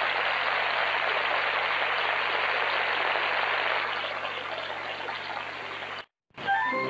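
Theatre audience applauding, a dense, steady clapping that eases off after about four seconds and cuts off about six seconds in. Organ music starts just after.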